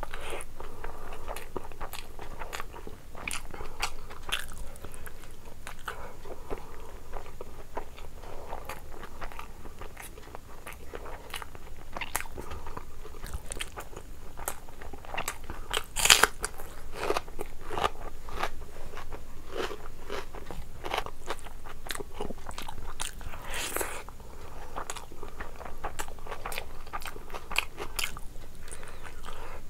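A person chewing and biting into food while eating curry and rice by hand: a steady run of wet chewing and crunching bites. The loudest, sharpest crunch comes about sixteen seconds in.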